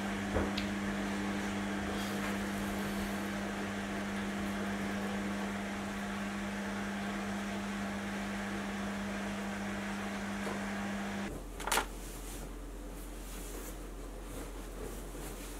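A running kitchen appliance: a steady motor hum with a whirring hiss, which stops abruptly about eleven seconds in. A brief sharp rustle follows, then a fainter low hum.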